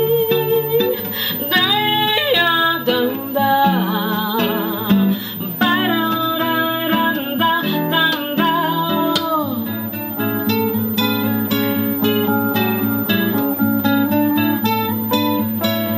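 A woman singing with vibrato over a nylon-string classical guitar. About ten seconds in, the singing stops and the guitar plays on alone, plucking notes.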